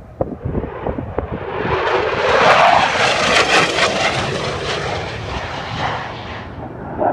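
A fighter jet flying past at speed: its engine noise builds over a couple of seconds, is loudest in the middle, then fades away as it passes. Wind buffets the microphone in the first second.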